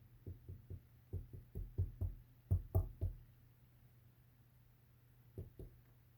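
A Kwikset 660 lock cylinder being knocked against a hard surface to shake its pins out: a quick run of about a dozen sharp knocks over the first three seconds, then two more near the end.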